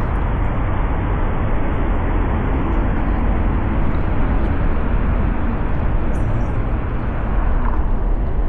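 Wind buffeting the microphone: a loud, steady, noisy rush, heaviest in the low end.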